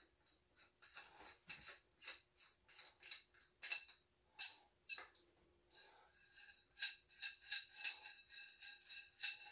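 Faint metallic clicks, clinks and light scraping from hands working a new steel rifle barrel and its milled end caps. In the second half the clicks come evenly, about three a second, each with a slight ringing squeak.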